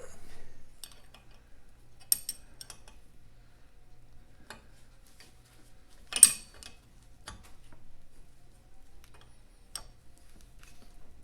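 Scattered metallic clicks and clinks of a spanner and small steel parts as the 1/4 inch Whitworth conrod nuts are worked off, with a sharp clink about two seconds in and the loudest about six seconds in.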